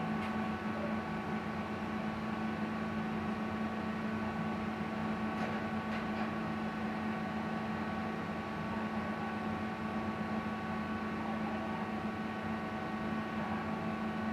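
A steady machine hum with room hiss, holding an even level, with a few faint clicks about five and six seconds in.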